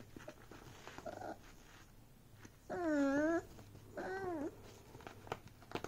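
Beagle puppy giving two drawn-out whining cries, the first longer and louder, the second a shorter rising-and-falling one a second later. Faint scratches and clicks from the mesh backpack it is pawing come between.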